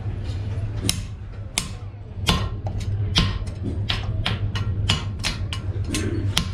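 Hand hammer repeatedly striking a handled slitting chisel driven into red-hot steel on a Fisher anvil, slitting the eye of a hammer head. The blows come about 0.7 s apart at first and then quicken to about three a second, each with a short metallic ring.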